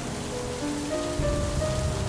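Steady rain noise with background music: a slow melody of held notes. About a second in, a low rumble swells in underneath.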